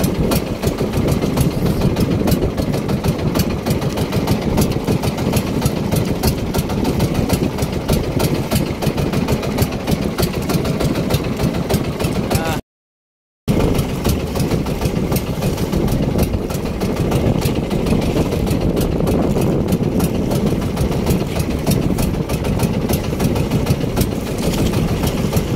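Outrigger fishing boat's engine running steadily with an even, fast pulse. The sound cuts out completely for under a second about halfway through.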